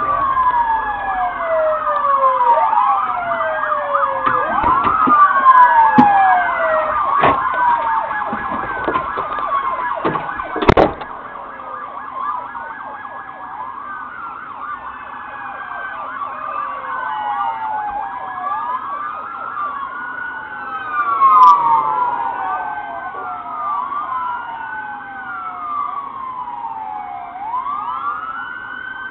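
Several police sirens wailing at once, their rising and falling tones overlapping out of step. A few sharp knocks or bangs come in the first third, the loudest about eleven seconds in.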